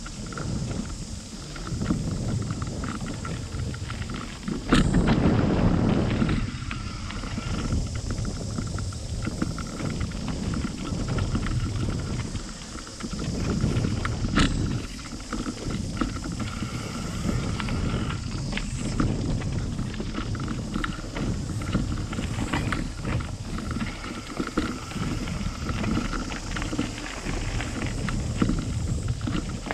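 Bicycle coasting downhill on a dirt singletrack, picked up through a handlebar-mounted GoPro: a steady rumble of tyres over the dirt and the bike rattling, with frequent sharp knocks over bumps and a loud jolt about five seconds in.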